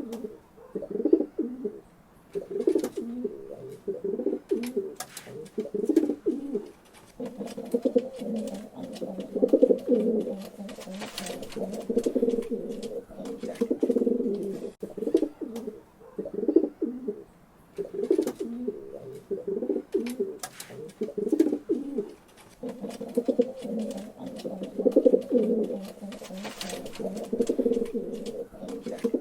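Pigeons cooing: low, throaty coo phrases repeat with brief pauses between them, with a few light clicks scattered among them.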